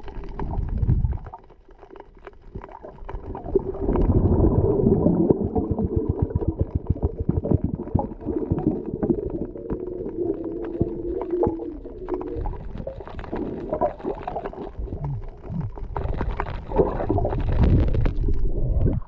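Muffled underwater sound from a camera held below the surface on a reef: low rumbling water movement with a faint steady hum and a dense run of rapid crackling clicks through the middle. It grows louder and more splashy near the end as the camera comes up toward the surface.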